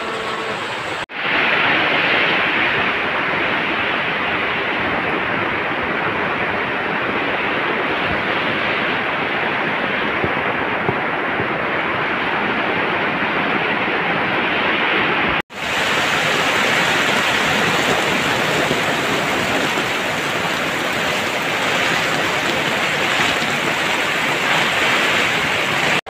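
Heavy tropical downpour driven by strong wind, drumming on a tarp-roofed hut, with water running off the roof edge. It is a steady, dense rush that cuts out for an instant twice.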